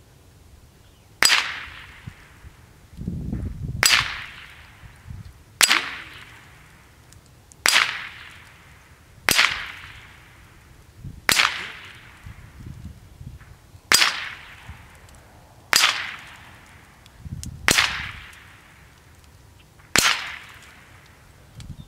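Ten sharp .22 LR rifle shots from a Ruger 10/22, spaced about two seconds apart, each followed by a short fading echo.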